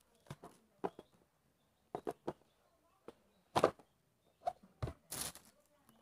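Cardboard phone box being handled: a scatter of short taps and knocks as the box is slid out of its sleeve and set down, the loudest knock a little past halfway, and a brief sliding scrape near the end.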